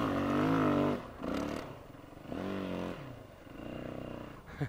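Yamaha WR450F's single-cylinder four-stroke engine pulling hard in third gear while climbing a steep hill, its pitch wavering with the throttle. About a second in the throttle is chopped, then it is opened again in several short bursts near the top.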